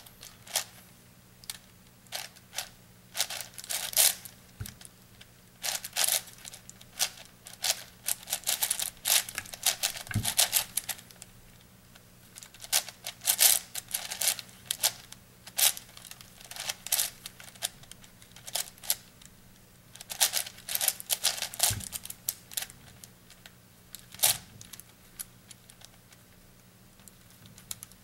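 An 8x8 puzzle cube being turned by hand: irregular runs of quick plastic clicks and clacks as its layers turn, broken by short pauses.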